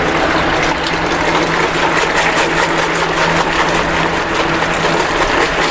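Steady mechanical hum with an even hiss, unchanging throughout: machinery running constantly in a pig barn.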